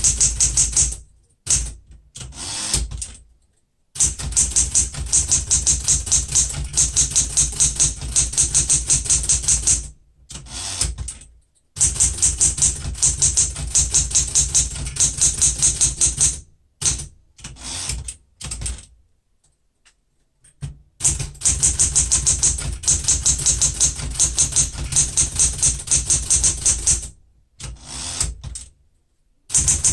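Keys of a 1970 Smith-Corona Super Sterling manual typewriter striking in fast runs of steady typing, several strokes a second, broken by short pauses. It is being touch-typed at speed.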